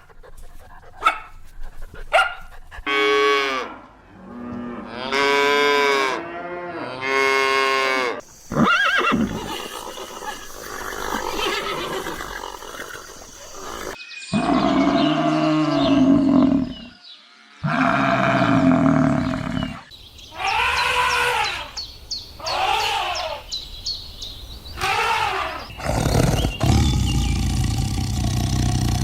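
Animal calls cut one after another, each a few seconds long with short gaps between them, among them several low, drawn-out calls.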